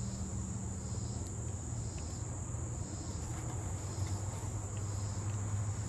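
Outdoor insects calling: a steady high-pitched trill with a softer chirp pulsing at a regular pace, over a low steady hum.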